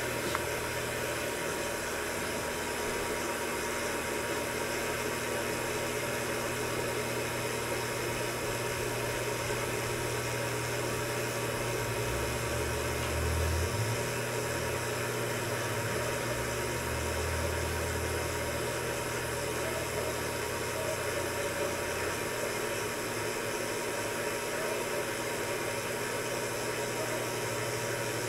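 Steady mechanical hum and hiss of running equipment, with a faint steady high tone; some low rumbling comes and goes between about twelve and eighteen seconds in.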